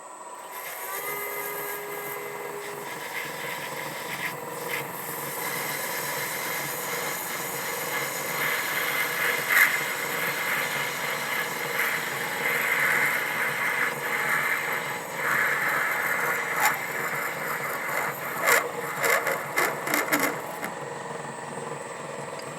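MN-80 lathe running with a parting tool cutting off a small turned oil-cup cap: a steady motor whine with a rougher cutting noise building in the middle. Several sharp knocks come near the end as the cut finishes, and the high whine stops shortly after.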